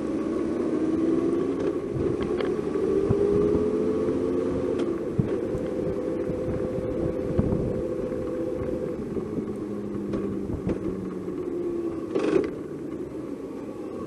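A vehicle's engine running under way, with road and wind noise. Its pitch climbs for a few seconds as it accelerates, then it settles to a steady cruise. A brief louder burst comes about twelve seconds in.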